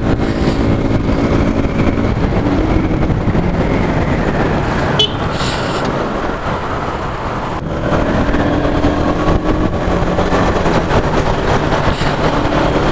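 Motorcycle engine running while riding, with wind rumbling on the microphone. The engine note eases off about halfway through and picks up again a few seconds later.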